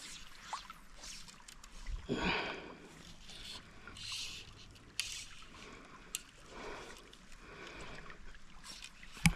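River water rushing and splashing, with a louder splash about two seconds in and a few sharp clicks or knocks, the loudest near the end.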